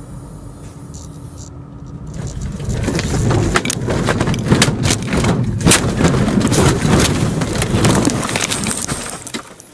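A vehicle running off the road into trees, heard from the dashcam inside it. The steady running noise of the cab turns, about two and a half seconds in, into a long loud crash: branches thrash and snap against the vehicle with many sharp cracks and bangs. It dies down near the end.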